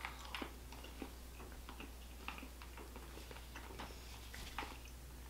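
Faint, irregular small clicks and smacks of two people chewing soft yogurt chew candy, with a low steady hum underneath.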